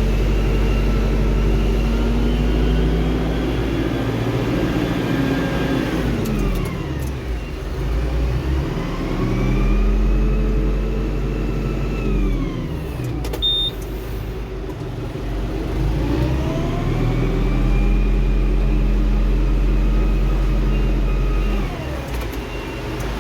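Tractor engine working on a silage clamp, its pitch climbing and then dropping away three times as it drives up and back down the pit.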